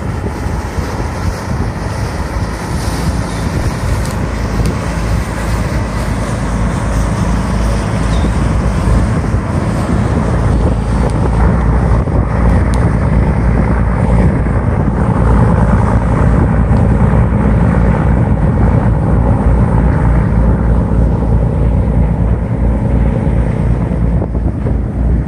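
Wind buffeting the microphone over the low rumble of a fishing boat's engine and its wake, growing louder about eight seconds in.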